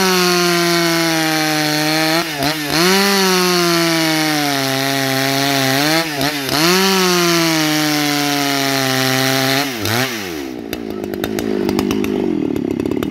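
Husqvarna 281XP two-stroke chainsaw ripping lengthwise through a log at full throttle, its pitch easing off and picking up again twice. About ten seconds in the throttle is released and the engine drops to a rough idle.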